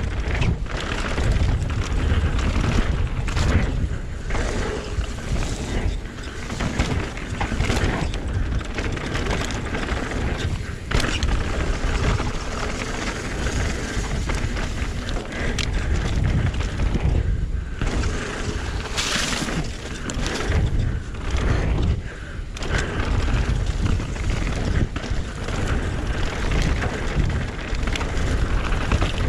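Mountain bike descending a dirt forest singletrack at speed: wind noise on the microphone, tyres on dirt and dry leaves, and the bike knocking and rattling over bumps, with a brief hiss about two-thirds through.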